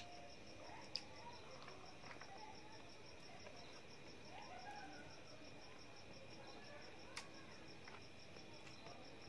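Cricket chirping in a steady, rapid, high, evenly pulsed trill. Two faint sharp clicks come about a second in and about seven seconds in, as fingers mix rice on a steel plate.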